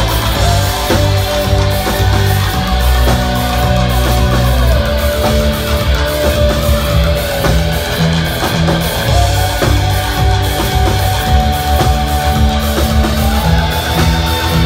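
Rock band playing a heavy, dark-toned song: electric guitar, bass and drum kit, with a high held line gliding up and down between long notes.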